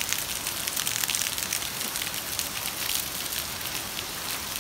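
Heavy rain: a steady hiss made of many fine drop patters.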